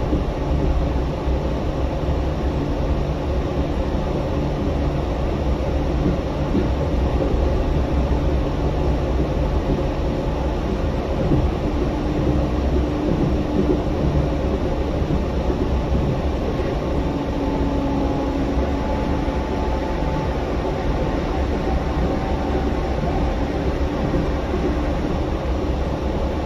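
Yurikamome rubber-tyred automated guideway train running along its guideway, heard from inside the car as a steady low rumble. Faint hums rise and fade from about the middle onward.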